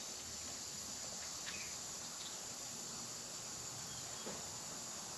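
Quiet background with a steady high-pitched hiss, broken by a few faint light clicks of a brake lever and small tools being handled.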